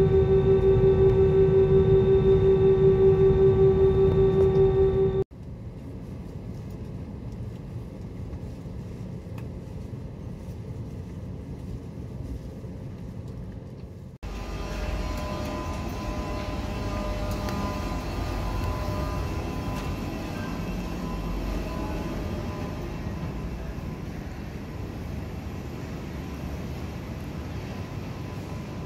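Cabin noise of an Airbus A320 taxiing: loud steady engine hum with a strong held tone and fainter tones above it, cut off suddenly about five seconds in. A quieter steady background noise follows, and about fourteen seconds in the steady hum of a large airport terminal hall.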